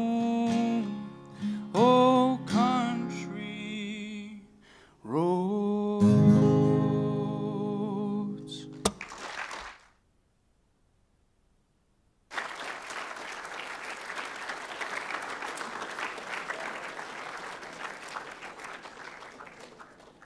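A young male voice sings the last lines of a song over an acoustic guitar, ending on a held note about nine seconds in. After a couple of seconds of silence, an audience applauds, the clapping slowly dying away.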